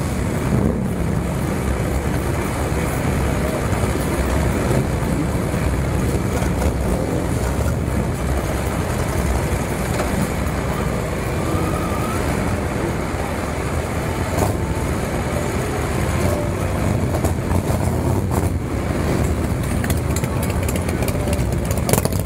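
Engines of many motorcycles running at low speed in slow, crowded traffic, a steady low sound with no single event standing out.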